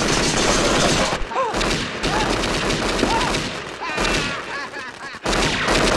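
Rapid bangs of firecrackers going off in a metal cooking pot, mixed with submachine-gun fire, sounding like a long gunfight. It breaks off briefly twice, a voice cries out over it a few times, and it cuts off suddenly at the end.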